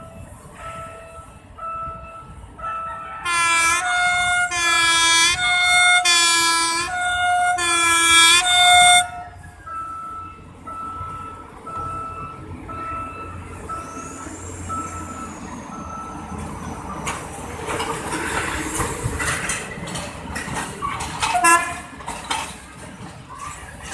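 The horn of PNR's SVI Locomotive 1 track-inspection car sounding five short blasts in quick succession, over a short electronic beep that repeats about once a second. Later the car passes close by with a rising rumble and rail clatter, and gives one more short toot near the end.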